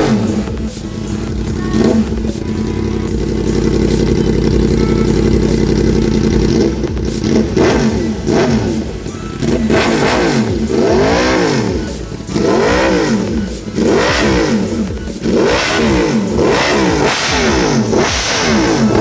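Yamaha R1 crossplane inline-four engine running at a steady speed, then revved in repeated quick blips, about one a second, each rising and falling in pitch.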